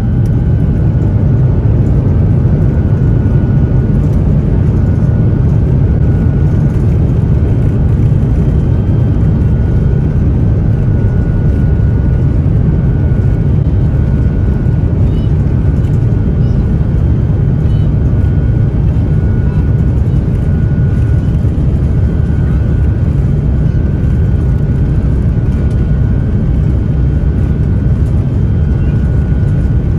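Airbus A350-900 cabin noise during the takeoff roll: the Rolls-Royce Trent XWB engines at high thrust give a loud, steady deep rumble. A faint high tone comes and goes above it.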